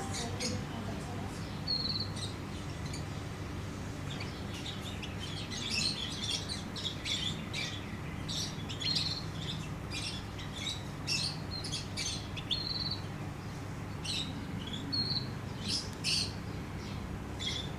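European goldfinch calling in short, high chirps and brief whistled notes, scattered irregularly, over a steady low hum.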